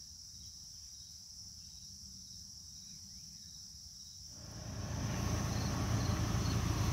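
Crickets trilling steadily at a high pitch. About four seconds in, a louder low rumble of noise comes in and stays.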